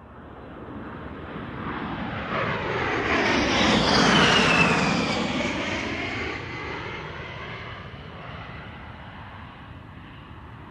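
A model jet's turbine flying past: the sound swells to its loudest about four seconds in, where a high whine falls in pitch as it passes, then slowly fades away.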